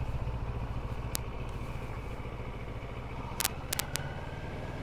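CFMOTO MT650's parallel-twin engine running low and steady at slow speed or idle, with a few short clicks about a second in and again between three and four seconds.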